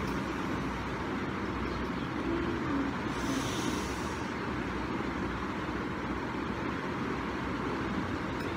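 Steady low rumble and hiss of background noise with no speech, and a brief soft hiss about three seconds in.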